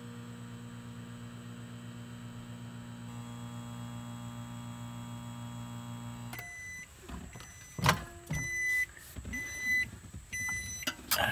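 Small countertop microwave oven running with a steady electrical hum, which cuts off about six seconds in as the cooking time runs out. Then comes a sharp click and a series of short beeps, with another click near the end as the door is opened.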